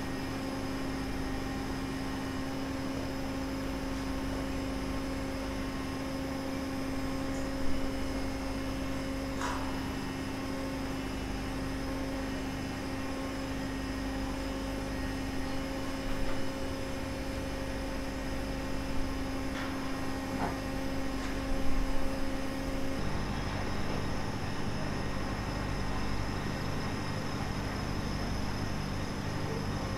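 Steady drone of running machinery, several pitches held at once, with a few scattered knocks. One of the pitches cuts out about three quarters of the way through.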